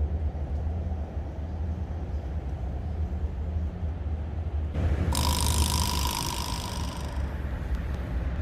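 Steady low rumble, like wind buffeting the microphone outdoors. About five seconds in, a buzzing hiss with a steady tone near 1 kHz comes in for about two seconds.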